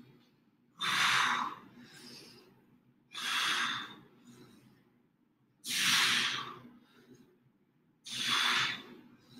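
A person exhaling hard through the mouth four times, each breath a short forceful hiss about two and a half seconds apart: exertion breathing paced with each push-up.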